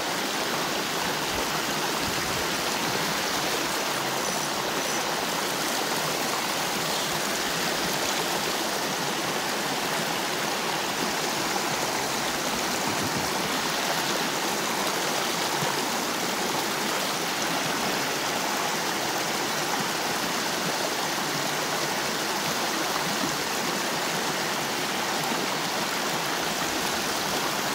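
Small rocky stream rushing steadily over stones and a little cascade, its flow swollen after rain.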